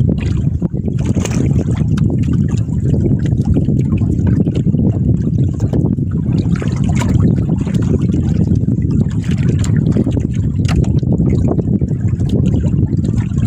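Water trickling and splashing around a small fishing boat, with scattered short splashes over a steady low rumble.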